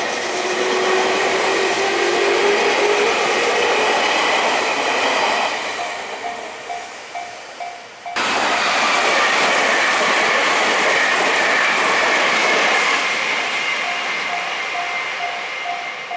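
An electric commuter train passing over a level crossing, its running noise and wheel clatter carrying a steady motor whine, with the crossing's alarm bell dinging in a steady repeat as it fades. After a sudden cut, another train passes loudly with a high whine that slowly falls in pitch, and the crossing bell dings again near the end.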